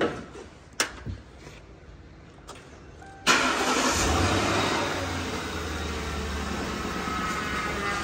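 A couple of sharp clicks, then about three seconds in the 2007 Lincoln Town Car's 4.6-litre V8 cranks and starts, flaring up briefly before settling into a steady idle.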